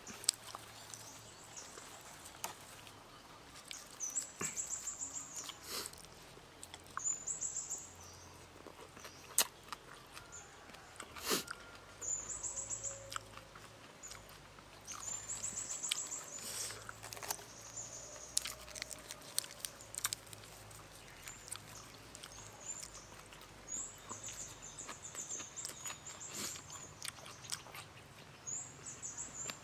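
Close-miked chewing of raw beef liver wrapped in fresh lettuce, with wet mouth sounds and a few sharp crunches. Short high-pitched bird trills come and go every few seconds.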